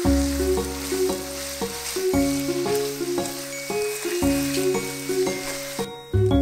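Food sizzling as it fries in a pan, a steady hiss that cuts off about six seconds in. Background music with a steady beat plays throughout.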